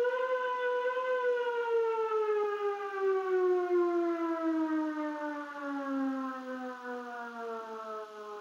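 Civil defense siren winding down: its wail holds steady for about a second, then falls slowly and evenly in pitch while fading.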